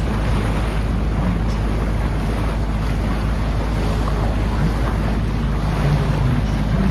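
Wind buffeting the microphone in a steady low rumble, with water rushing and splashing against a small boat moving along the river.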